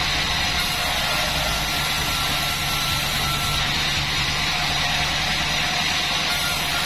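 Band sawmill running steadily: a low machine hum under a continuous hiss, with a faint thin whistle that comes and goes.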